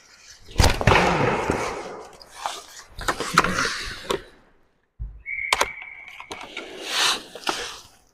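Sticks clacking and skates and goalie gear scraping on the plastic floor in a goalmouth scramble of a roller hockey game. A little past halfway comes a referee's whistle, one steady blast about a second long, stopping play.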